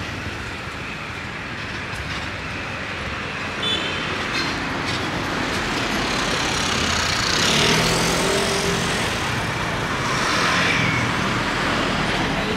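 Road traffic on a busy street: engines of passing vehicles over a steady wash of tyre and street noise, swelling twice as vehicles pass close, about seven and ten seconds in.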